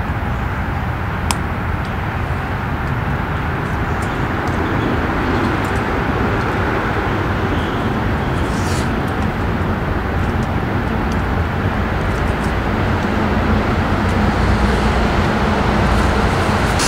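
Wood-burning camp stove fire with flames jetting from a crushed beer can of cotton cloth set on it, a steady rushing noise with a few faint crackles. The flames are the gas driven out of the cloth as it chars into char cloth.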